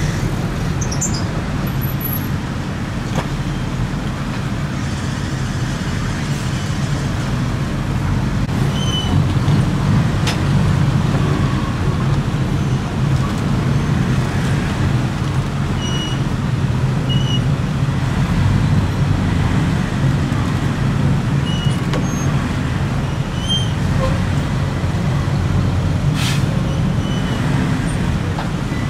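A heavy truck engine running steadily, most likely the crane truck powering its hydraulic boom during the lift, over passing road traffic. Short high chirps sound now and then.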